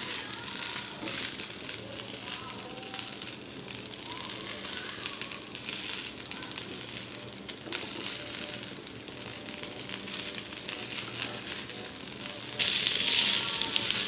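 Fried rice crackling and sizzling in a nonstick wok as a spatula stirs and tosses it, with a steady crackle that turns louder and brighter near the end.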